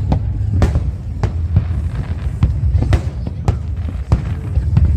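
Aerial fireworks going off: a rapid, irregular string of sharp bangs over a continuous low rumble.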